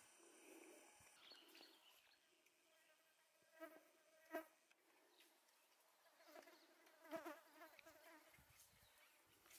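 Faint buzzing of a flying insect, coming and going in short passes over near silence.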